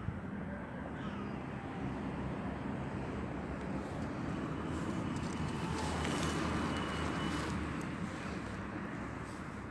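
Outdoor background rumble of a passing vehicle, swelling to its loudest about six seconds in and then fading.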